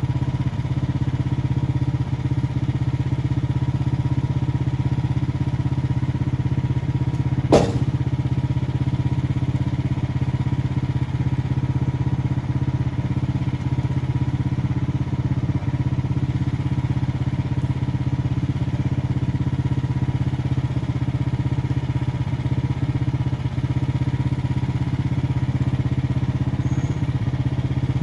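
Small engine of a Frontier OS23 sawmill running steadily, with one sharp knock about seven and a half seconds in.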